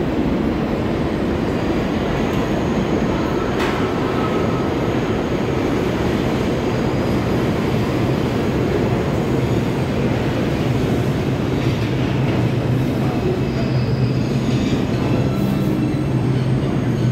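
New York City subway train running alongside the platform: a loud, steady rumble of wheels on rail with a low hum that grows stronger in the second half, and a faint high wheel squeal near the end.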